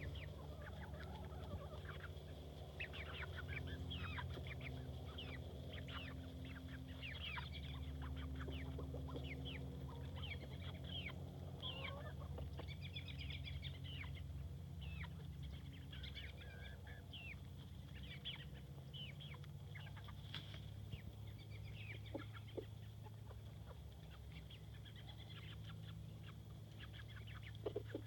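Chickens calling, with many short, quick high notes coming thick and fast, over a steady low hum.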